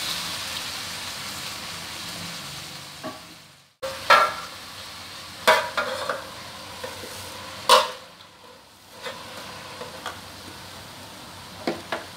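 Hot aluminium wok of water spinach sizzling as a little water is poured in, the sizzle fading over about three seconds. Then several sharp, ringing metal clanks as the aluminium lid is set on the wok and a spatula knocks against it, over a low steady hiss.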